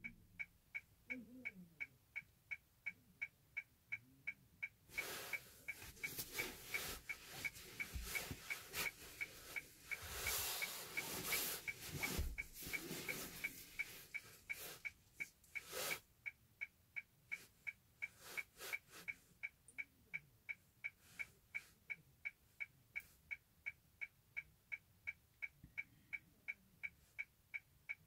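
A car's turn-signal or hazard indicator ticking steadily at about two and a half ticks a second while the car stands still, with a few brief rushes of noise between about 5 and 16 seconds in.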